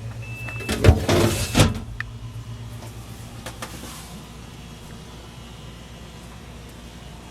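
Refrigerator drawer sliding and rattling in its runners for about a second, starting about a second in, with a few faint clicks after it, over a steady low hum.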